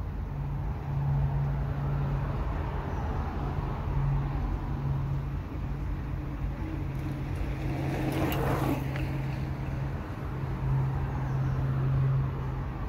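Road traffic running steadily with a low rumble and hum, and one vehicle passing louder about eight seconds in.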